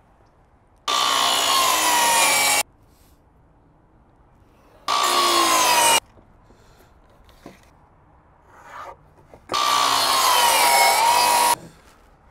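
Milwaukee cordless miter saw cutting through a wooden board three times. Each cut is a loud burst of a second or two, with a whine that falls in pitch as the blade bites and stops abruptly. Light knocks between the cuts come from the board being handled.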